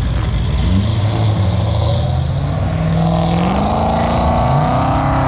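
Car engine accelerating as cars pull out onto the road. Its note climbs in pitch about half a second in and again around three seconds in, with other engines running underneath.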